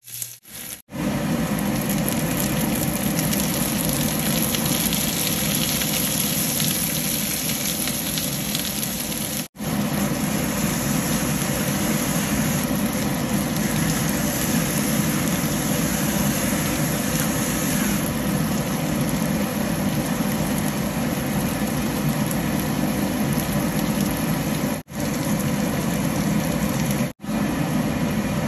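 Onions and asparagus sizzling steadily in a frying pan, over a low rumble. The sound cuts out for a moment three or four times.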